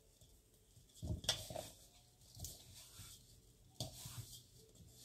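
Hands mixing and kneading empanada dough in a bowl: soft rubbing and squishing, with louder knocks of the bowl about a second in and again near the end.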